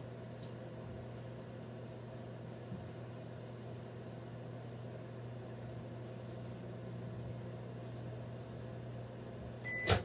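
Over-the-range microwave oven humming steadily as it heats butter, then a short beep and a loud click as the door is popped open near the end, after which the hum stops.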